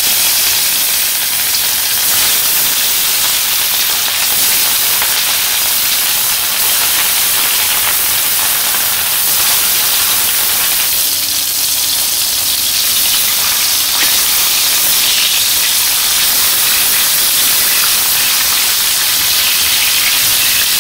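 Pieces of fish rubbed with turmeric and chilli frying in hot oil in a wok: a loud, steady sizzle.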